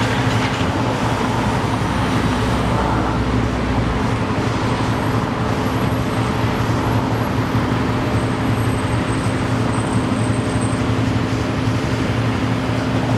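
A steady, loud engine drone with a constant low hum under a wash of noise, unchanging throughout.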